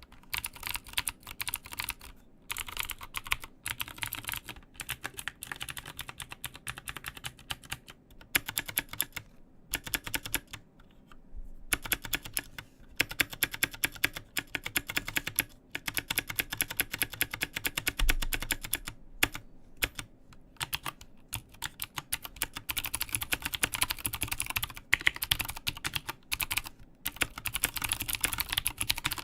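Continuous typing on a mechanical keyboard with Cherry MX Blue clicky switches in an aluminium case, fast runs of sharp key clicks broken by brief pauses.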